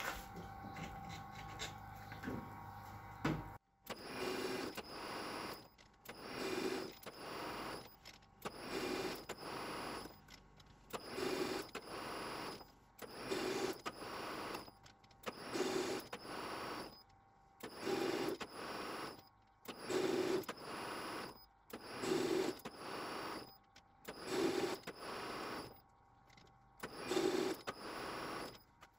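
Metal lathe cutting an 11 TPI thread with a high-speed-steel tool: a steady running hum that stops abruptly a few seconds in, then the spindle starting and stopping in short paired runs, repeating about every two seconds, pass after pass.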